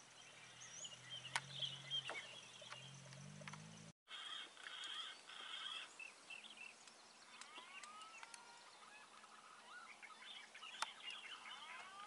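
Faint wild birds calling and chirping in trees, with a few curved whistling notes in the second half. A low hum sits under the first few seconds, and the sound cuts out for an instant about four seconds in.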